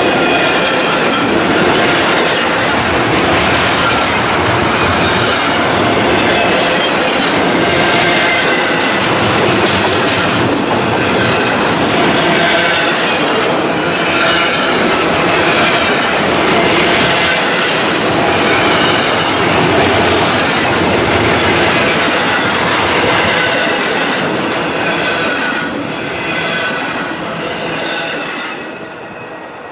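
Double-stack intermodal freight cars rolling by on steel rails, wheels clicking over the rail joints with a wavering high wheel squeal over the rumble. The sound fades over the last few seconds as the end of the train passes.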